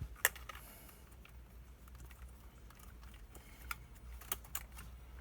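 A few sharp, light clicks and taps from the steering wheel and its wiring being handled and fitted onto the steering column, the loudest just after the start and a small cluster about four seconds in.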